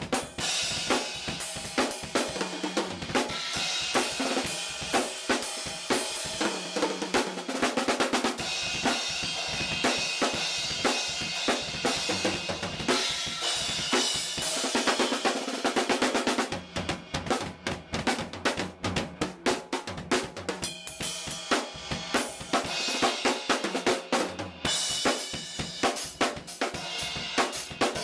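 Drum kit being played: snare, bass drum and cymbals in a steady groove, with a stretch of rapid separate hits past the middle where the cymbal wash drops back. Recorded through a pocket camcorder's built-in microphone.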